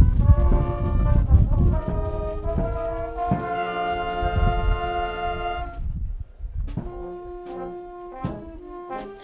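High school concert band of brass and woodwinds playing chords with a heavy low end. A long held chord stops sharply about six seconds in, and the band goes on more softly.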